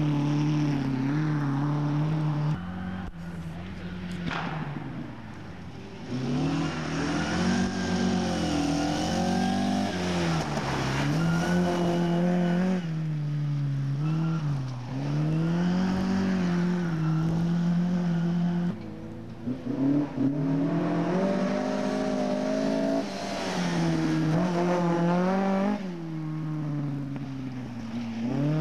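Rally car engines at full throttle as the cars pass one after another on a tarmac stage. The engine note climbs and drops again and again with each gear change and lift off the throttle, and quietens briefly between cars.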